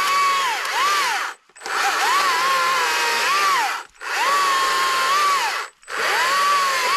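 Electric chainsaw cutting up a fallen tree, running in bursts with the trigger let go for a moment about three times, its motor whine dipping in pitch now and then.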